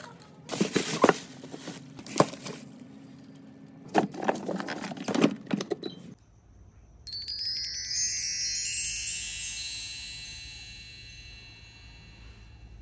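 Clattering and knocking of items being handled and set down over a low hum for about six seconds, which stop abruptly. After a short quiet, a bright cascade of high tinkling wind-chime tones begins and slowly fades, a sparkle sound effect.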